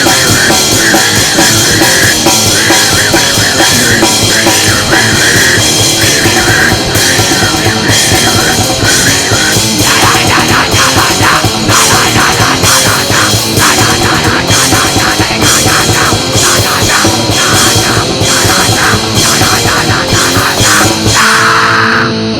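Loud, distorted heavy rock music with a drum kit, the drumming packed with rapid hits from about ten seconds in. The track cuts off abruptly at the end.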